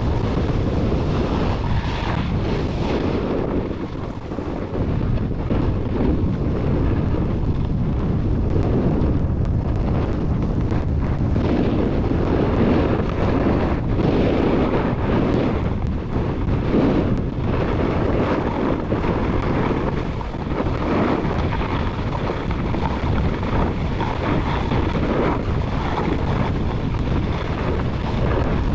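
Wind rushing over the microphone of a downhill skier, with the scrape of skis on groomed snow, swelling and easing in waves.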